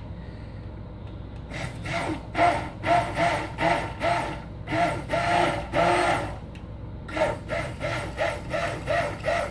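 Stick blender mixing lye solution and oils into soap batter, run in short repeated bursts about two a second, starting about a second and a half in and quickening near the end.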